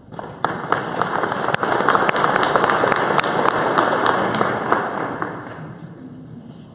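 Audience applauding: clapping that swells over the first couple of seconds, holds, then fades away near the end.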